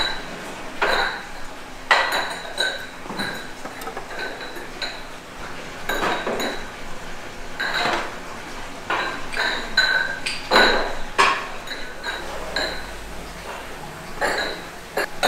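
Hard ware, likely fired pots, clinking and knocking irregularly, several strikes a second at times. Many of the clinks ring briefly at the same high pitches.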